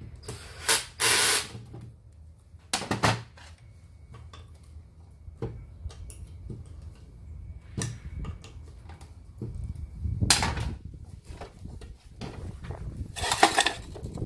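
Cordless drill-driver running in short bursts, backing out the screws of a submersible pump's casing. Between the bursts come small clicks and knocks of metal parts, with a longer scraping burst near the end.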